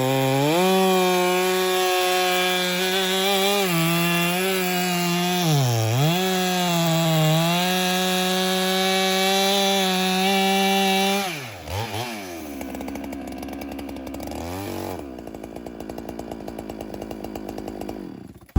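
Holzfforma two-stroke chainsaw running at high revs, its pitch dipping briefly under load about six seconds in. It drops to a low idle about eleven seconds in and idles until near the end.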